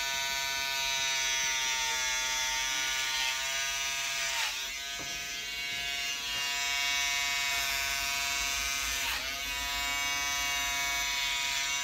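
Electric hair clippers running steadily as they shave hair off a head. The pitch dips briefly twice, about four and a half and nine seconds in.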